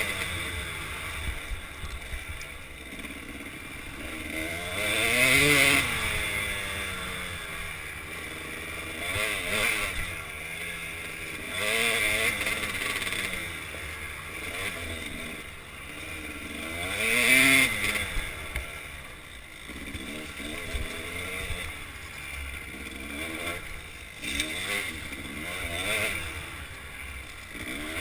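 Kawasaki KDX200 two-stroke single-cylinder trail bike engine revving up and dropping back over and over as the throttle is worked on a rocky trail. The strongest surges come about five, twelve and seventeen seconds in.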